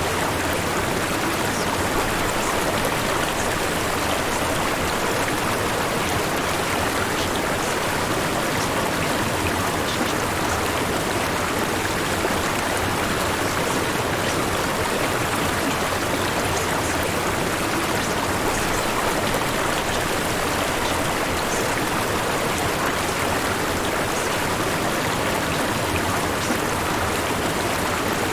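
Steady white noise, an even rushing hiss with no change in level.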